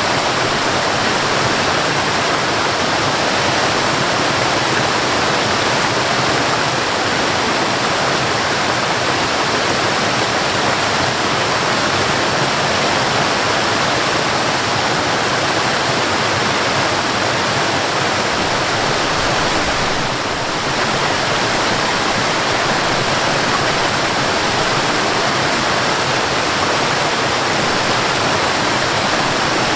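Waterfall: a steady, dense rush of falling water, with a brief slight dip in level about two-thirds of the way through.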